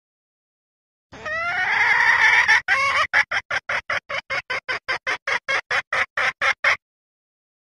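Female junglefowl's mating call, the call a hen gives to draw in a cock: a drawn-out note rising in pitch, then a quick run of short clucks about five a second that stops abruptly.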